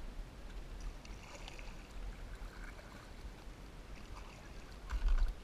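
Water lapping and trickling around a plastic kayak hull as it drifts, with small drips and splashes from the paddle. A short low rumble near the end.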